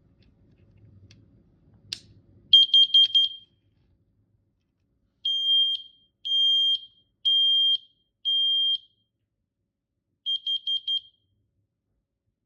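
Combination smoke and carbon monoxide alarm sounding its high, piercing beep after a click. It gives a rapid run of short beeps, then four long beeps about a second apart, then another quick run of four short beeps.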